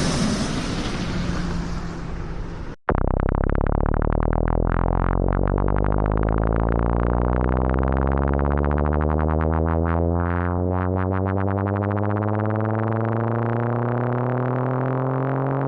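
Aircraft landing noise fading down until it cuts off about three seconds in, then a synthesized video-game racing-car engine sound: a buzzy electronic tone that rises slowly and steadily in pitch, like an accelerating retro game car.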